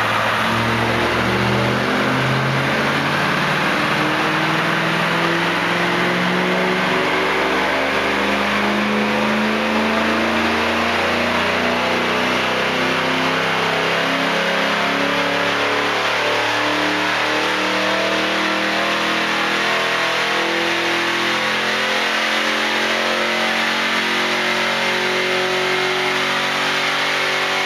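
S197 Ford Mustang engine under load on a chassis dynamometer, its revs climbing slowly and steadily through one long pull, with the hiss of the tires on the rollers.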